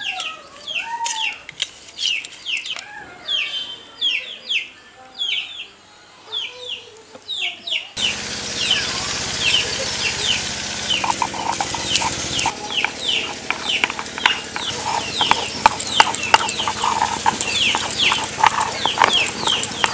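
Chicks peeping over and over with a hen clucking. About eight seconds in, a steady gritty scraping starts under the peeping: a stone muller grinding dried red chillies on a flat grinding stone.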